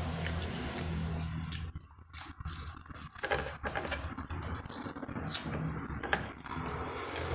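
Eating sounds: chewing and crunching food, with scattered sharp clicks, over a steady low hum. The sound drops briefly about two seconds in.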